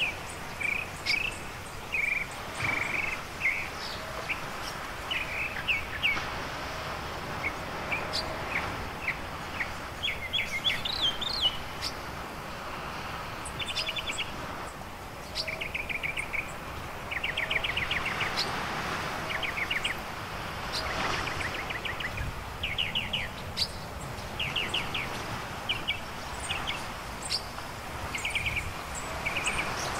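Birds chirping and singing again and again in short calls and fast trills of repeated notes, over a steady rushing wash of surf breaking on the beach.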